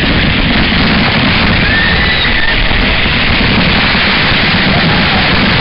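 Water from a waterfall pouring down onto and around the camera at close range: a loud, steady rushing of falling water and spray.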